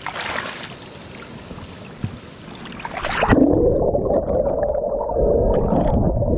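Water sloshing, then about three seconds in a splash as the microphone plunges into the river. After it everything is muffled: the loud, dull rushing and bubbling of water heard from underwater.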